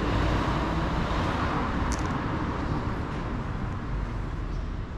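Steady street traffic noise, a continuous rumble and hiss of passing vehicles.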